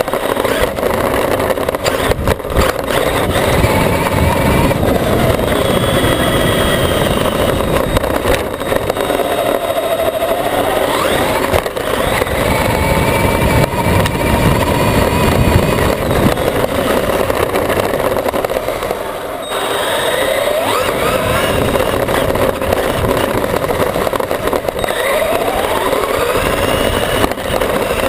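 Onboard sound of a Traxxas E-Maxx electric RC monster truck driving fast: the electric motors whine, sliding up and down in pitch as the truck speeds up and slows, over a steady rough rumble of the tyres running over grass and hard ground.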